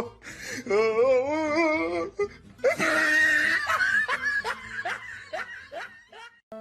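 Laughter: a long wavering laugh, then a run of short falling bursts of laughter that trail off near the end.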